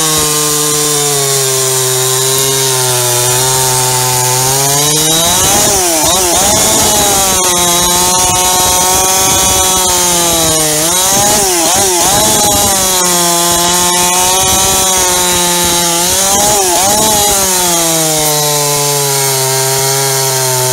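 Modified (Bakerized) Jonsered chainsaw running flat out while cutting through a log: its high engine note sags as the chain bites into the wood, then swings back up about every five to six seconds, three times, as each cut finishes and the next begins. The saw has a reworked top end, bottom end and exhaust.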